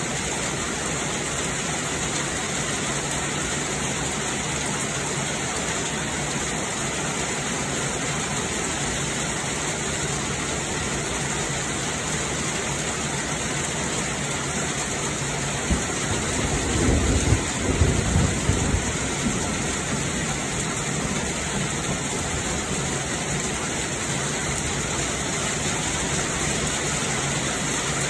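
Heavy rain falling steadily in a storm. A low rumble swells and dies away over a few seconds just past the middle, the loudest moment.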